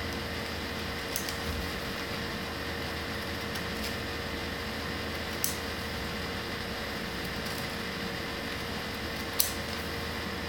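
Scissors snipping through folded paper: a few short, sharp snips, the loudest near the end, over a steady background hum and hiss.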